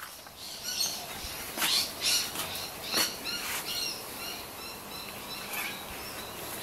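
Outdoor birds chirping and calling in a quick series of short high chirps, with a few louder sharp sounds about two to three seconds in.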